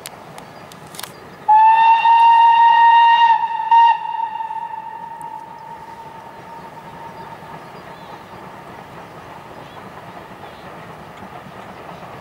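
Steam locomotive whistle: one long blast of about two seconds that slides up slightly as it starts, then a short second toot, the tone fading out over the next few seconds.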